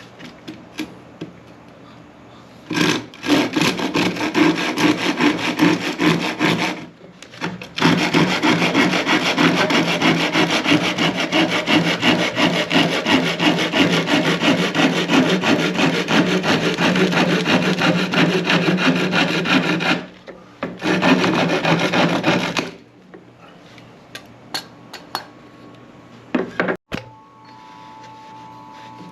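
A saw cutting through a cedar fence picket in three bouts of quick, steady strokes, the longest about twelve seconds, then stopping; scattered light knocks follow.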